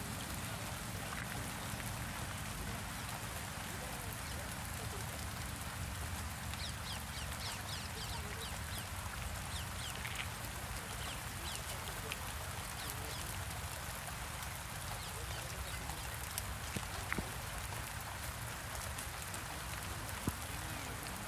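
Steady hiss and patter of light rain falling, with a run of short, high chirps about a third of the way in.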